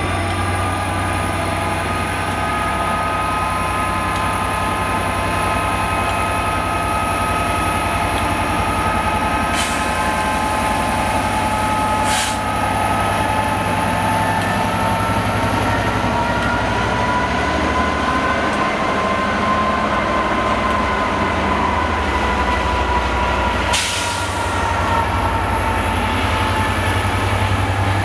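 Class 67 diesel locomotive's two-stroke V12 engine working steadily as it moves a rake of coaches, a constant rumble with whining tones that rise gently and fall back. A few sharp clicks come through it, twice near the middle and once near the end.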